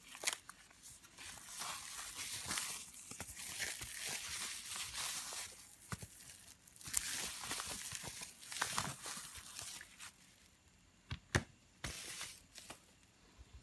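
Crinkling and rustling of foam wrap and a plastic bag being pulled open and unwrapped by hand. Near the end, a few sharp knocks as a phone is set down on a silicone repair mat.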